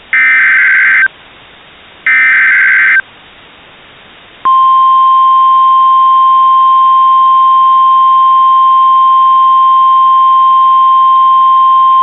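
Emergency Alert System SAME header: the last two of its three one-second data bursts, a second apart, then about a second and a half later the steady single-pitch NOAA Weather Radio 1050 Hz warning alarm tone, held for about eight seconds, signalling a new warning about to be read.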